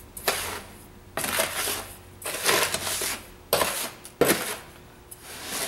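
A metal spoon scraping and crunching through coarse Epsom salt mixed with lavender buds in a plastic mixing tub, in repeated gritty strokes about once a second. Each stroke turns the mix over or presses it against the bottom of the tub to break up clumps of essential oil.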